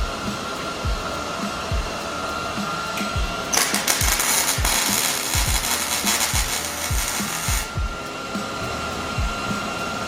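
Welding the bung onto the downpipe: a burst of crackling, hissing arc about four seconds long, starting about three and a half seconds in and cutting off abruptly. Background music with a steady beat and a steady hum run underneath.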